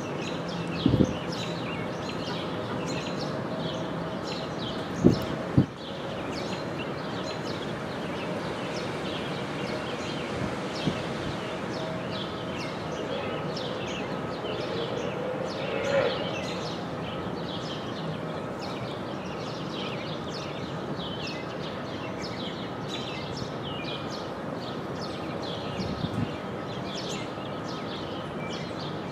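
Woodland ambience: many small birds chirping and singing over a steady hiss, with a few low thumps near the start and again near the end, and a brief louder sliding call about midway.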